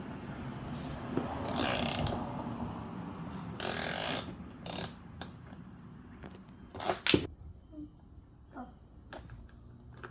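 Toy wrench turning the wheel bolt of a toy car, a mechanical clicking in several short bursts with scattered clicks between. The loudest burst comes about seven seconds in.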